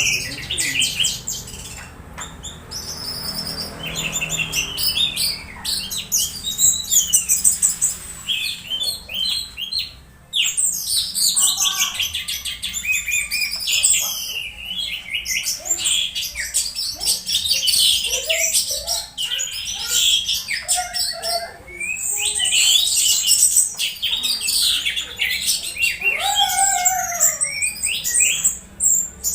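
Orange-headed thrush singing a rapid, varied song of chirps, twitters and sliding whistled notes, with a brief pause about ten seconds in.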